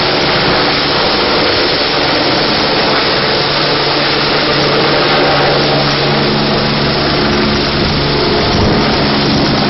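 Medical helicopter climbing out just after takeoff, its turbine engine and rotor making a loud, steady noise with a low hum underneath.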